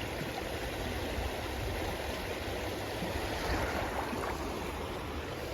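River water rushing steadily in a fast-flowing stretch of current.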